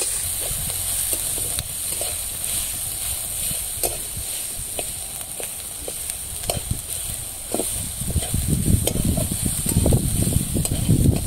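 Green chillies and garlic sizzling in mustard oil in a metal kadai, with a metal spatula scraping and tapping against the pan about once a second. About eight seconds in, the stirring gets faster and louder.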